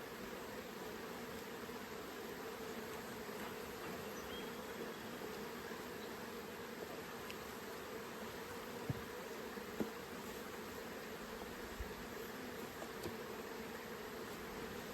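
Many honey bees buzzing steadily around an opened hive, with a couple of faint knocks about nine and ten seconds in.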